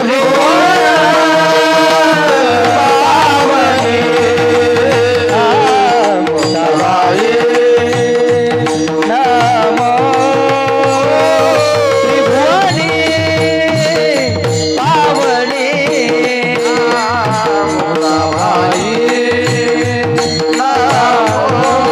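Indian devotional singing: a male voice sings long, ornamented, wavering melodic lines without clear words, over a steady held drone and a hand-drum beat.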